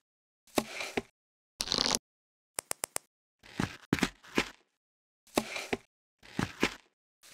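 Footstep sound effects: short paired steps, each pair broken off by dead silence, with a brief swish and three quick clicks about two seconds in.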